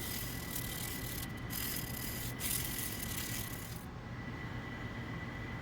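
Hand sanding over a silver inlay set into a metal tomahawk head: a steady scratchy hiss with a few short breaks between strokes, stopping about four seconds in.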